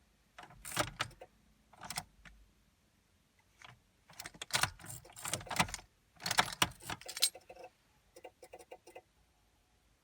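Car keys jangling in several short bursts, then about seven seconds in a run of rapid, even clicking from the 2000 Chevrolet Blazer that lasts about two seconds, with no crank. This erratic clicking is a symptom of the fault, which turned out to be a rusted battery ground connection.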